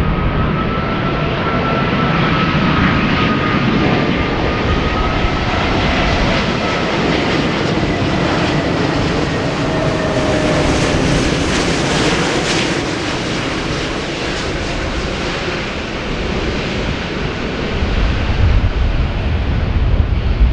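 Jet airliner engines passing close by: a loud, steady roar with a faint, slowly drifting whine. It grows brightest about halfway through, then dulls as the aircraft moves away. Wind rumbles on the microphone near the end.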